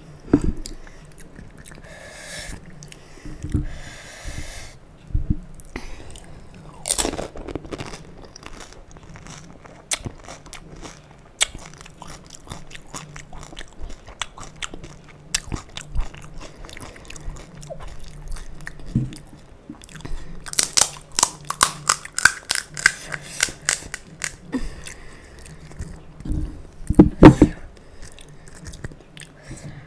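Close-miked chewing and crunching of panipuri, the crisp fried puri shells breaking in the mouth. There is a quick run of crunches partway through and a few louder thumps near the end.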